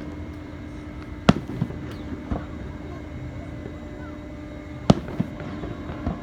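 Fireworks shells bursting: two sharp, loud bangs about a second in and near five seconds in, with several smaller pops between and after them.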